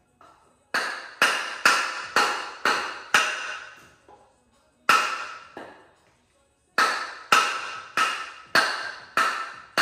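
Hammer blows on a block of wood, driving the crankshaft pulley off a Toyota 4A-GE engine: three runs of steady strikes, about two a second, each ringing briefly.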